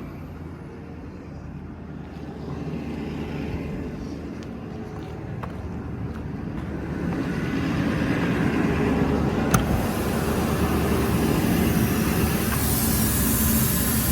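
6.7 L Power Stroke diesel running with its VMAC engine-driven air compressor engaged, building air pressure; the sound grows louder about halfway through. A single sharp click a little past the middle.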